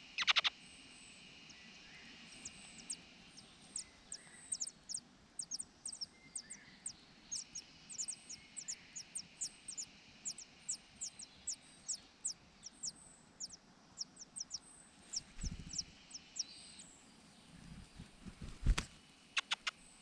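Large niltava nestlings begging: a long run of short, thin, high-pitched falling calls, about two to three a second, as they gape to be fed. Near the end a few dull thumps, the loudest of them about a second before the calls end.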